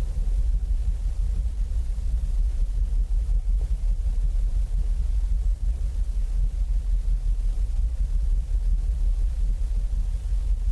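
Low, steady rumble of wind buffeting an exposed microphone, its loudness flickering irregularly.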